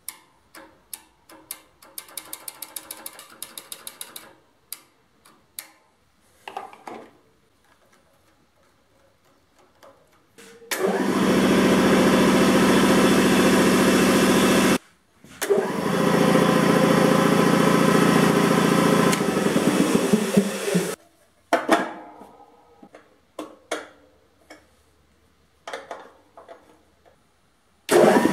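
Electric-motor-driven piston air compressor with a finned twin-cylinder pump. It starts about 11 seconds in and runs with a loud steady drone, cuts off abruptly near 15 seconds, restarts half a second later and runs until about 21 seconds, then winds down, and starts again just before the end. Before it starts there are light clicks and taps.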